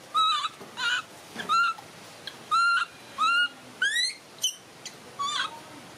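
Baby macaque cooing: a series of about eight short, clear, whistle-like calls, mostly arched in pitch. One call about four seconds in rises steeply.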